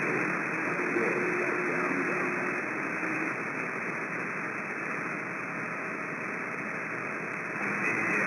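CB radio receiver hiss and static on an open channel between transmissions, with a faint steady tone in the first three seconds.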